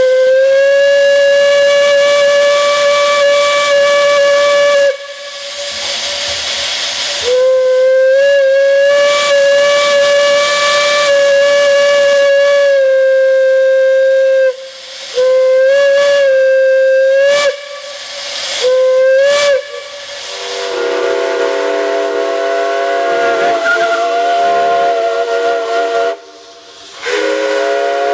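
Steam whistles blowing with a hiss of steam. A single-note whistle gives two long blasts and then two short ones. From about two-thirds of the way in, a deeper multi-note chime whistle sounds a long chord that breaks off briefly near the end and then resumes.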